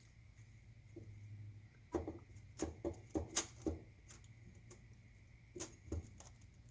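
Light metallic clicks and clinks of bolts and tools being handled during engine assembly: a quick cluster about two seconds in and a couple more near the end, over a low steady hum.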